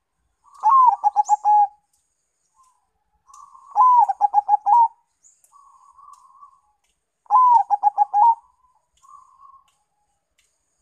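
Zebra dove (perkutut), a local and Bangkok crossbred bird, cooing three times. Each phrase opens with a longer note that rises and falls, then runs into a quick string of about five short clipped coos. Softer, quieter coos come between the phrases.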